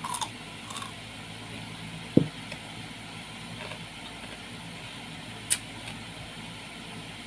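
A few short crunching bites into a piece of fruit at the start. About two seconds in comes a single heavy low thump, the loudest sound, and a sharp click follows a little past halfway, all over a steady low hum.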